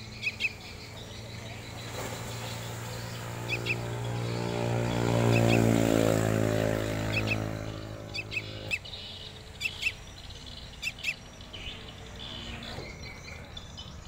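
Fledgling sooty-headed bulbuls giving short chirps, often in quick pairs, at irregular intervals. Between about two and nine seconds in, a passing vehicle's engine hum swells and fades, louder than the chirps at its peak.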